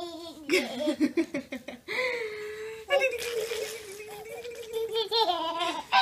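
Baby laughing in a string of long, high-pitched peals with short breaks between them.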